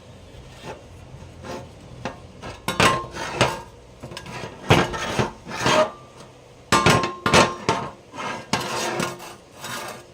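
Metal parts and tools knocking and clinking together, with short scraping strokes between the knocks. The knocks come in irregular clusters, some with a brief metallic ring.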